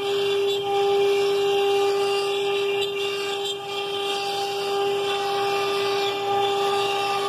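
Asia Robótica Works 1325B CNC router spindle running steadily while its bit cuts through plywood: one steady whine with overtones over the hiss of the cut. The machine's vacuum hold-down pump runs under it.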